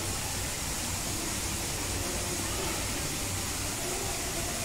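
Steady hiss of room or ventilation noise with a low hum underneath and a faint murmur of voices.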